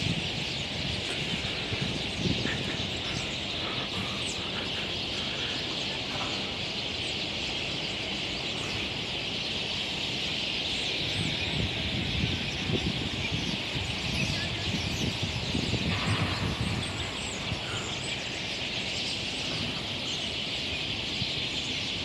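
A huge flock of starlings calling overhead: thousands of overlapping chirps and whistles blend into one steady, high-pitched chatter. A low, uneven rumble runs beneath it and is strongest around the middle.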